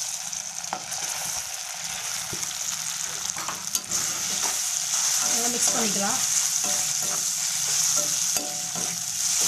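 Idli cubes frying in spiced oil in a steel kadai, sizzling steadily, while a steel ladle scrapes and clicks against the pan as they are stirred in; the sizzle grows louder about four seconds in.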